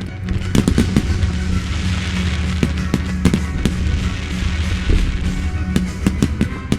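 Aerial fireworks going off: a quick cluster of bangs about half a second in, then scattered bangs and a dense crackling hiss, with more bangs near the end. Music with sustained low notes plays under the fireworks.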